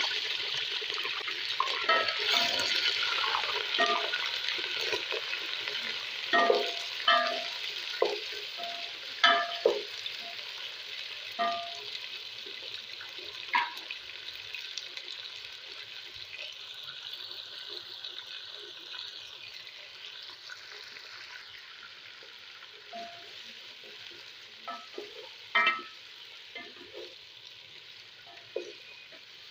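Raw chicken pieces sizzling in hot oil in a cooking pot. The sizzle is loudest at first and slowly dies down, with scattered knocks and clinks against the pot.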